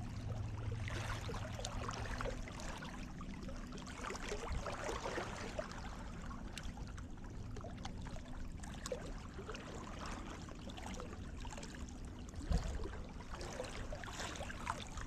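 Water lapping and trickling at the shoreline, with light scattered ticks and a dull low thump about twelve and a half seconds in.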